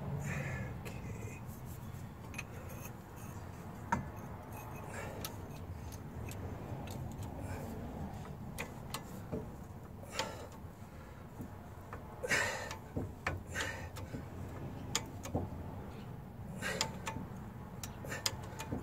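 Scattered metal clicks and clinks from a differential carrier and a homemade bottle-jack ball joint press frame being fitted and handled, with a few short scraping bursts about twelve seconds in and again near the end.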